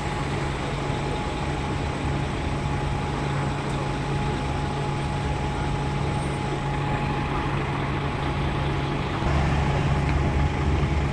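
Double-deck coach's diesel engine idling steadily close by, with a thin steady whine over the low hum. About nine seconds in a deeper engine rumble grows louder as other buses move up in the traffic.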